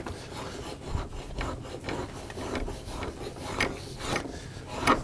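Hand-forged draw knife shaving a wooden stick clamped in a bench vise: repeated scraping strokes of the blade peeling shavings off the wood.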